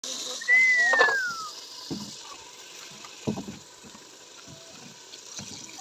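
Steady hiss and bubbling of a large cauldron of meat cooking over a wood fire, loudest in the first second and then settling lower. About half a second in, a single short high call slides down in pitch, and a few faint knocks follow.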